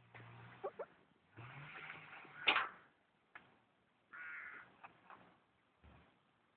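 Hens clucking and calling in several short bouts, with a loud, sharp squawk about two and a half seconds in.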